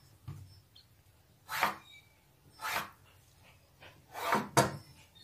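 Tailor's chalk drawn across cloth to mark cutting lines: four short scratchy strokes, the last two close together and loudest near the end.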